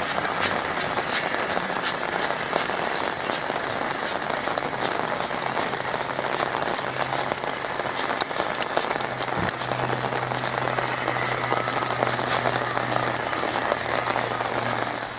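Pouring rain: a steady, dense hiss with many sharp close drop ticks. A low steady hum joins it about six seconds in.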